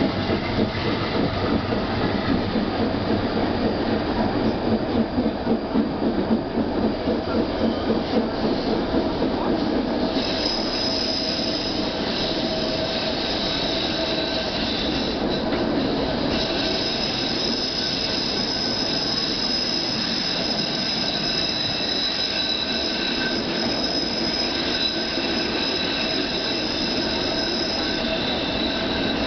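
Vitória–Minas railway passenger train P002 rolling. A rhythmic wheel clatter, about two beats a second, gives way about ten seconds in to a steady high-pitched wheel squeal. The squeal breaks off briefly near the middle, then resumes.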